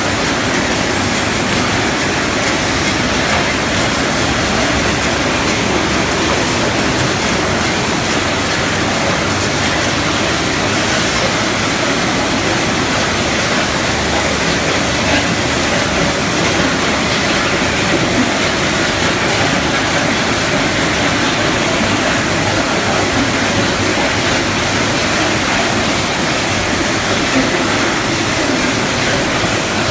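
Poultry processing line running: loud, steady machinery noise from the overhead shackle conveyor and processing machines carrying plucked chicken carcasses.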